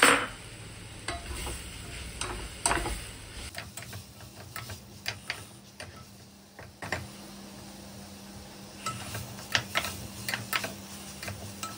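Spatula stirring and scraping field beans and tomato slices in a hot pressure cooker pot, with scattered scrapes against the metal over a low sizzle of frying. A single knock comes right at the start, and the scraping grows busier near the end.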